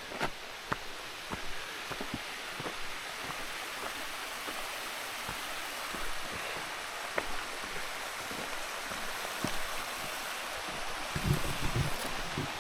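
Footsteps on a forest trail, a few light crunches and clicks, over a steady rushing hiss, with a low rumble of wind on the microphone near the end.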